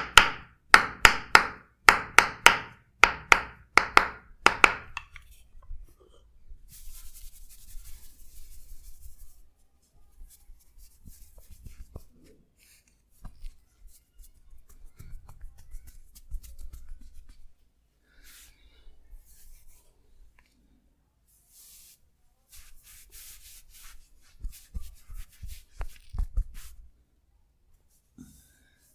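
Rhythmic percussive massage strikes, about two a second, that stop about five seconds in, then quieter intermittent hands rubbing over skin.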